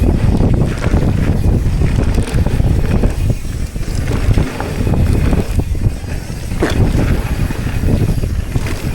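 Wind buffeting the microphone and a mountain bike rattling and knocking over rough ground on a fast descent.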